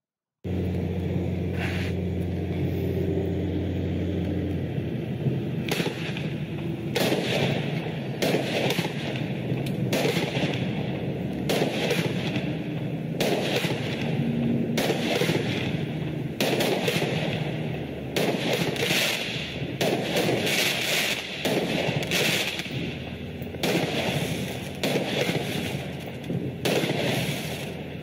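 'Amazing Spider' consumer fireworks cake firing, one shot after another, each a sharp bang, about one a second. A steady low hum runs under the first few seconds.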